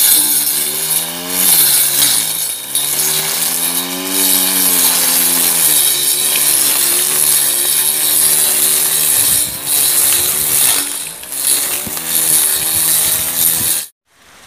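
Homemade electric grass cutter: a 775 DC motor spinning a steel-plate blade, cutting grass. It runs with a whine whose pitch dips and recovers several times, under a loud hiss, and stops suddenly near the end.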